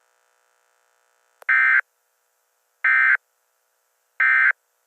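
Emergency Alert System end-of-message signal: three short bursts of warbling SAME digital data tones, each about a third of a second long, about a second apart, marking the end of the alert.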